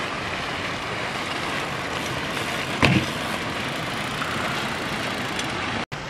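BMX bike riding over concrete beside splashing fountains: a steady rushing noise of tyres and water, with one sharp clack about three seconds in as the bike hits the ground.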